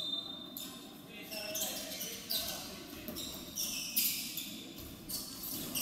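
A basketball bouncing on a hardwood gym floor, roughly once a second, over the murmur of a large hall. A short, steady high whistle blast ends about half a second in.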